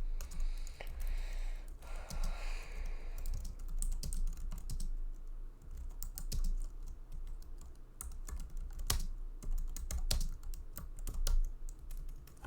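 Typing on an Apple full-size keyboard: a fast, irregular run of light key clicks.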